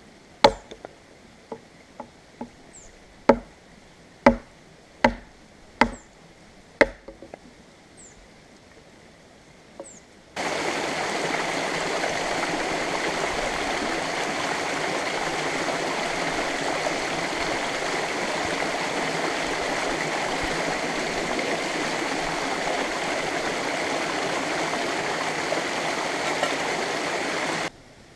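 Firewood being split by hand: sharp wooden knocks about once a second. About ten seconds in, these give way suddenly to a small waterfall, water splashing over rock ledges in a steady rush that stops just before the end.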